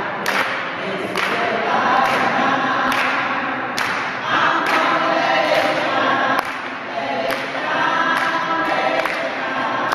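A choir singing, with a sharp beat about once a second.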